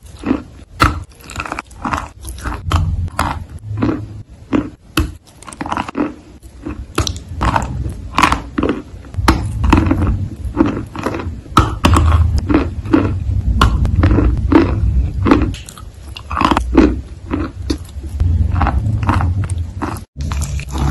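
Close-miked biting and chewing of a brown-coated, cream-filled bar on a stick: an irregular, rapid run of crisp bites and crunches with mouth noises between them.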